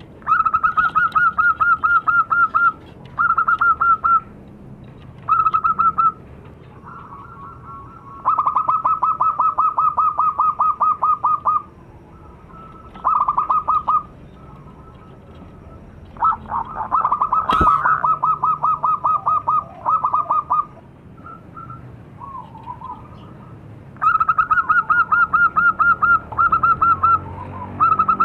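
Zebra doves (perkutut) calling in bouts of rapid staccato coos. Each bout is a quick run of about seven notes a second lasting one to three seconds, repeated after short pauses, with some bouts overlapping. One sharp knock comes about two-thirds of the way through.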